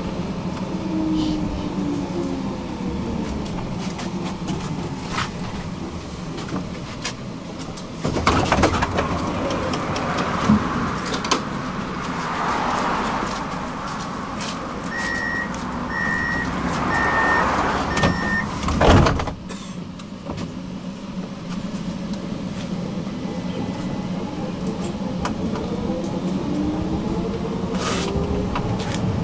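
Interior of an electric tram. The traction motors' whine falls as it brakes into a stop, and the doors open with a jump in noise about eight seconds in. Four short warning beeps sound around fifteen seconds in, the doors shut with a thud near nineteen seconds, and the motor whine climbs again as the tram pulls away.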